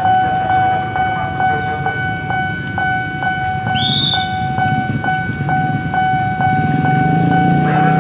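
Railway level-crossing warning bell ringing steadily, about two strikes a second. A short high horn toot sounds about four seconds in, and a low rumble grows near the end.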